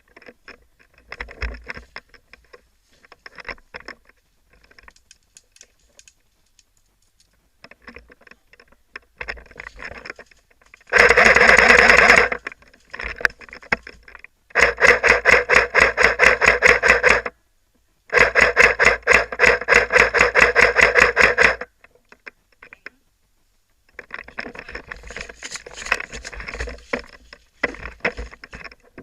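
Airsoft gun firing in long full-auto bursts, three of them in the middle, each a fast even rattle of shots lasting a few seconds. Quieter scattered crackles come before and after the bursts.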